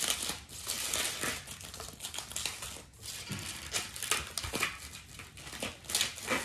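Plastic packaging crinkling and rustling in irregular crackles as the protective plastic end covers are worked off a soundbar.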